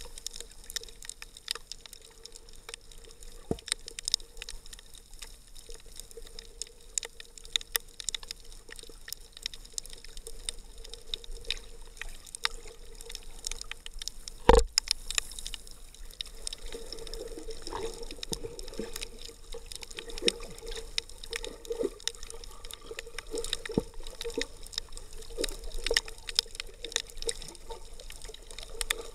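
Underwater ambience heard through an action camera's sealed waterproof housing: water sounds with a faint steady hum and many scattered sharp clicks and crackles. One loud knock comes about halfway through, and a bubbling, gurgling sound follows in the second half.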